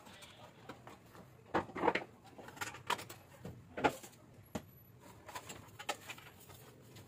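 Irregular knocks and clatter of sheet metal being handled: a window-type air conditioner's control panel and its bracket being fitted back into place, loudest in a cluster about one and a half to two seconds in and again about four seconds in.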